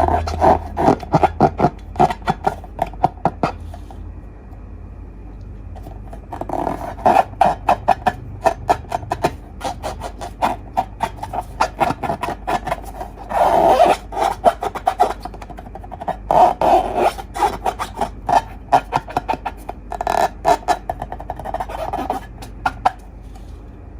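Slime being squeezed and worked by hand, making runs of rapid clicks and pops from trapped air, with a short lull about four seconds in.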